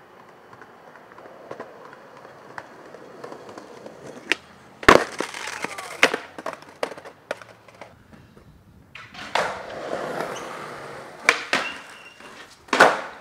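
Skateboard in use: wheels rolling, with sharp clacks of the board popping and landing. The loudest clack comes about five seconds in, and more clacks follow near the end.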